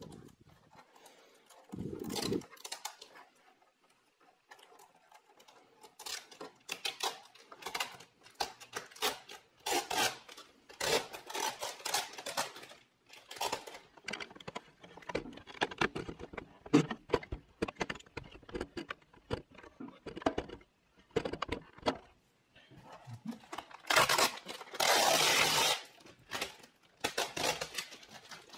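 Protective plastic film being peeled off keyboard keys: irregular crinkling and tearing, loudest near the end. It is mostly quiet for the first few seconds apart from a dull knock about two seconds in.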